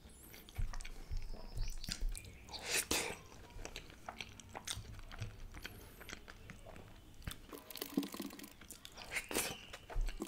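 Close-miked chewing of a mouthful of rice and chicken malai tikka, with irregular wet mouth clicks and smacks.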